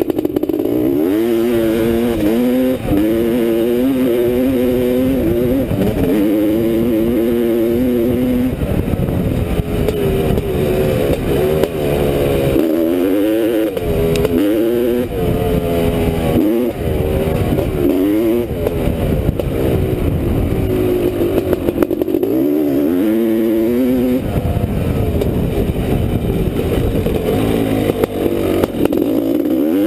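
1985 Honda CR500's 500 cc two-stroke single-cylinder engine under way off-road, revving up and down over and over as the throttle is opened and closed, with brief drops in pitch off the throttle about 13, 17 and 22 seconds in.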